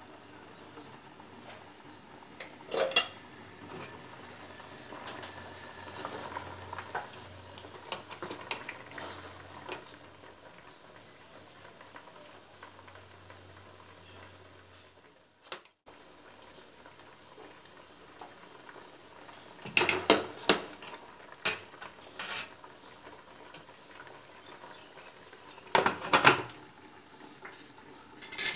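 A steel ladle clinking against a ceramic bowl and pot as soup is ladled over steamed momos, with softer pouring and scraping in between. There is a sharp clink a few seconds in, a cluster of clinks about two-thirds through, and another near the end.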